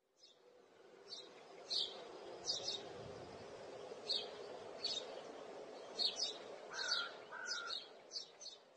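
Birds chirping faintly: short high chirps at irregular intervals, with two brief lower whistled notes about seven seconds in, over a faint steady outdoor background hiss.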